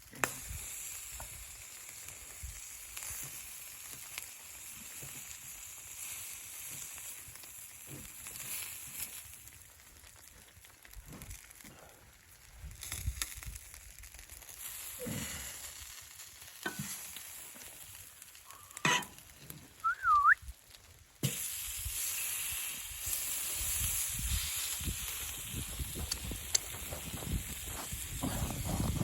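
Food sizzling in a pan, with scattered knocks and scrapes of a utensil stirring. About two-thirds of the way through, the sizzle suddenly becomes louder.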